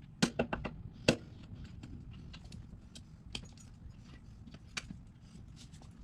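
Sharp clicks and taps of hand tools and small metal parts being handled while working on a motorcycle's carburetors, a quick run of clicks in the first second, then scattered single clicks.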